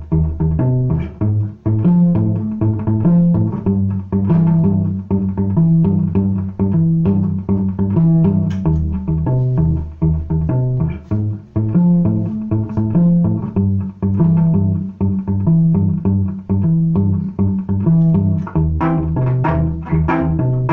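Cello played with the bow: a rhythmic passage of short, detached low notes.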